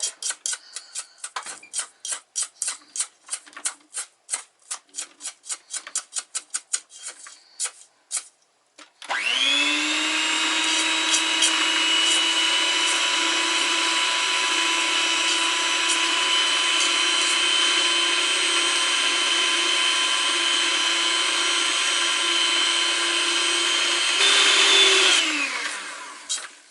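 A knife scraping down the sides of a mixing bowl in quick strokes for about eight seconds, then an electric mixer starts and runs with a steady whine, creaming stiff butter and sugar. Near the end it speeds up briefly and then winds down to a stop.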